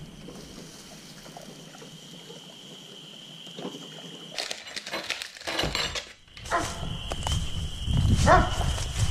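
Steaks laid on a charcoal grill's wire grate and handled with a meat fork, with a brief clatter and crackle about four to six seconds in. Then footsteps rustle through dry leaf litter. A steady high-pitched trill sounds faintly in the background throughout.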